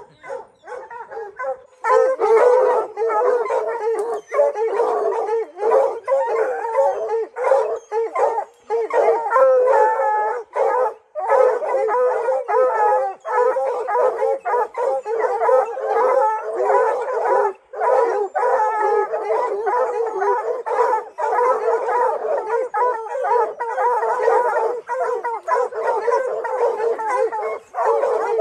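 A pack of hunting hounds baying and howling at a mountain lion treed above them: the treed bark that tells the hunters the cat is up a tree. It is a dense, unbroken chorus of overlapping calls that gets much louder about two seconds in.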